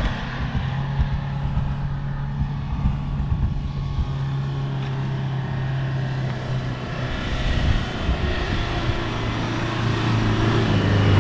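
Four-wheel-drive vehicle engine working hard on a steep off-road climb, a steady low drone that grows louder toward the end.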